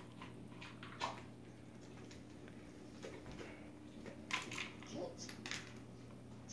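Faint clicks and taps from a toddler handling a small plastic cup of dog treats while golden retrievers take them from her hand, over a steady low hum. The clicks cluster about one second in and again between about four and six seconds in.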